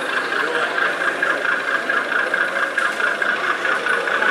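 Sound-fitted model diesel locomotive running slowly, its sound decoder playing a diesel engine ticking over through a small onboard speaker: steady and thin, with no deep bass. Crowd chatter mixes in underneath.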